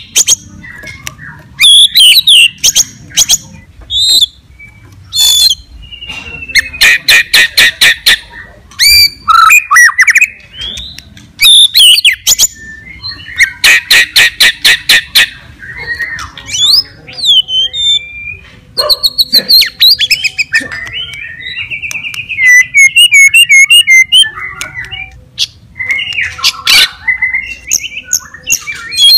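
White-rumped shama (murai batu) singing a loud, varied song in full voice ('gacor'): clear whistles and sliding notes broken by fast, harsh chattering rattles, the two longest around a quarter of the way in and about halfway.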